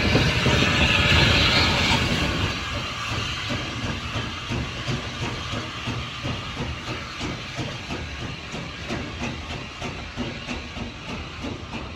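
Steam locomotive blowing off a loud hiss of steam. About two seconds in the hiss gives way to the steady, rhythmic chuffing of a steam tank engine's exhaust as it pulls a train away.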